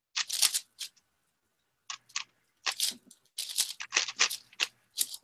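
A speedcube being turned by hand, its plastic layers clacking in bursts of rapid turns with short pauses between them.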